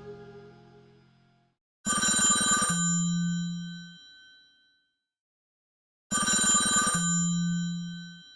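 A Samsung Galaxy S25 Ultra alert tone played twice, about four seconds apart. Each time it is a short ringing chime with a rattling start, then a brief low hum, and its high tones fade out.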